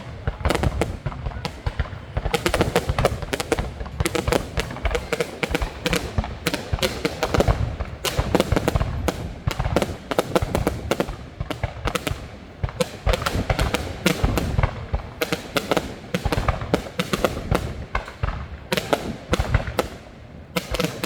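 Fireworks going off in rapid succession: a dense, unbroken stream of bangs and crackles, several a second, with heavy low thumps.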